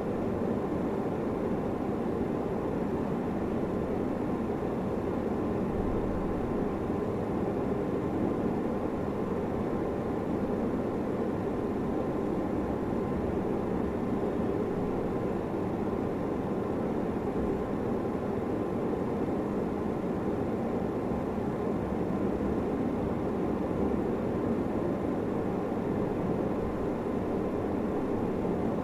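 Steady rushing noise, even and unchanging, with most of its weight low to middle in pitch.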